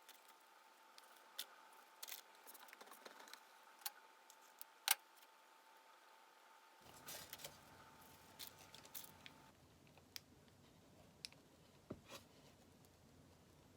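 Faint, scattered clicks and light taps of small objects being handled in a quiet room, one sharper click about five seconds in, over a faint steady hum that stops a little over halfway through.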